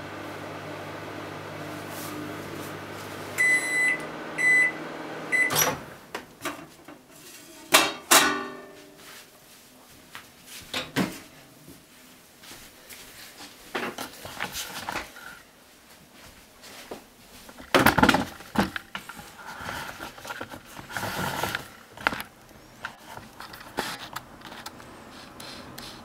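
Microwave oven running with a steady hum that stops about three and a half seconds in, followed by three beeps marking the end of the heating cycle. The door is then opened with a click, and irregular knocks and clatter follow.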